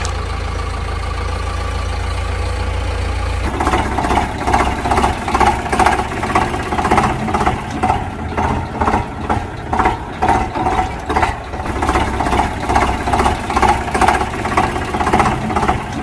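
A running engine: a steady low hum for the first three and a half seconds, then, after an abrupt change, a regular chugging beat of about two to three pulses a second.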